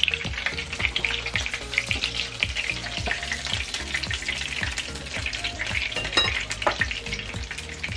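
Batter-coated shrimp frying in a skillet of hot oil: a steady crackling sizzle, with a couple of louder crackles late on.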